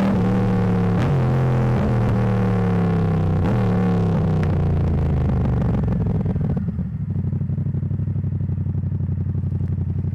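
Motorcycle engine pulling through the gears, its pitch climbing and then dropping at each of several upshifts, before settling about seven seconds in to a steady, lower throbbing note.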